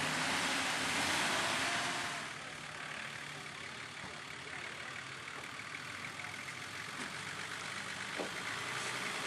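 Off-road 4WD's engine running at low revs as the vehicle crawls over rocks, a steady low drone. A loud hiss covers it for the first two seconds, then drops away.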